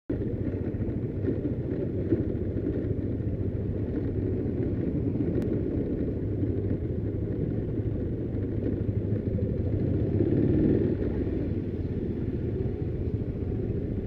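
Motorcycle riding at low speed, heard from on board: its engine and road noise make a steady low rumble that swells slightly about ten seconds in.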